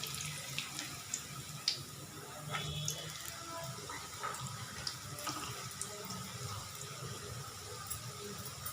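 Spring rolls deep-frying in hot oil: a steady sizzling and bubbling hiss, with a few light clicks.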